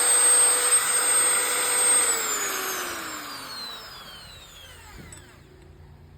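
Bosch 550 W 13 mm electric drill running at steady speed with a whine, then switched off about two seconds in; the motor winds down with a falling whine and has faded out by about five seconds in.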